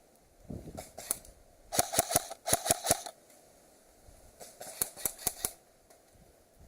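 Airsoft guns firing: a quick string of about eight sharp cracks about two seconds in, then a shorter string of five or six a couple of seconds later.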